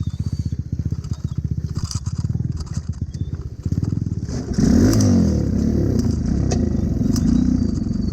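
Small single-cylinder Honda Cub motorcycle engine idling with a rapid, even putter, then revving up about four and a half seconds in and running on louder under throttle.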